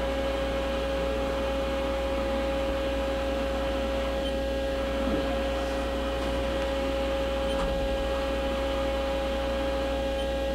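Haas EC-500 horizontal machining center running with a steady electric whine over a low hum as its Z axis traverses.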